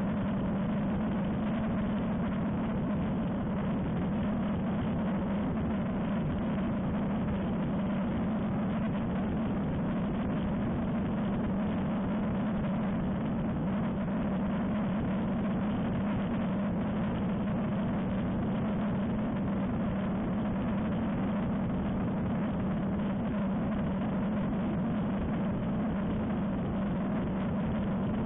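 Ultralight aircraft engine and propeller in flight, a steady, unchanging drone.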